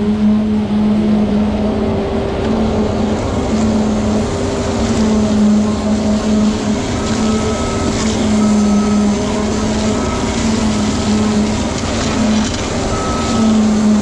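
Concrete pump running under load as concrete is pushed through the rubber end hose into the forms: a loud, steady machine drone whose tone comes and goes in stretches of a second or two. Short, faint, high beeps repeat about once a second in the second half.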